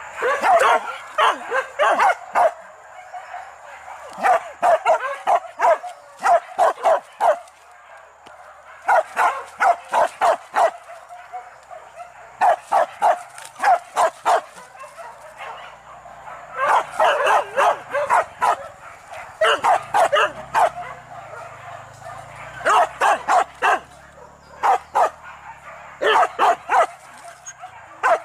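Hunting dogs barking and yelping in quick runs of several barks a second, in bouts a second or two long with short pauses between.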